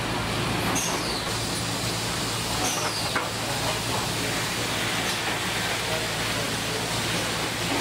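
Steady car assembly plant floor noise: a low machinery hum under an even hiss, with two brief falling high-pitched squeaks, about one and three seconds in.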